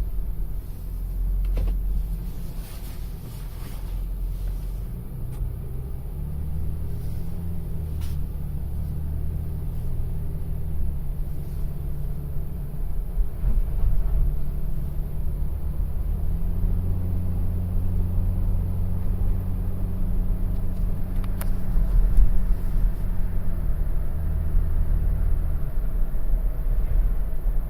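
2013 Toyota Tacoma pickup engine and road noise heard from inside the cab while driving. The low engine hum shifts in pitch a few times as the truck's speed changes.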